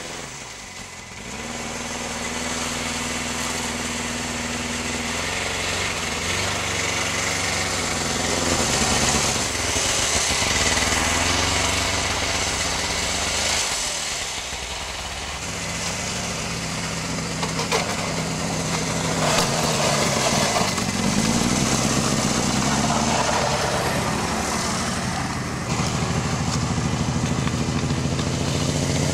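Snowmobile engine running and revving as the machine pulls away and drives over snow and ice towing a sled. Its pitch rises and falls several times and it dips briefly about halfway through. The engine has just been started from cold after being thawed with a blowtorch.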